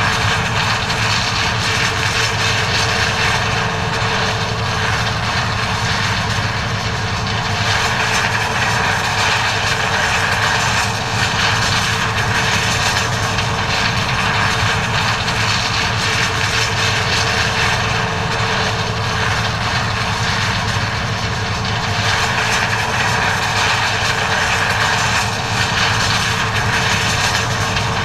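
John Deere 9400 combine harvester running steadily while harvesting corn: a constant engine hum with a dense mechanical rush from the machine.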